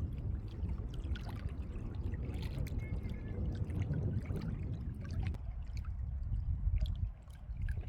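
Strong wind buffeting the microphone as a steady low rumble, with scattered small clicks and rustles over it; it dips briefly near the end.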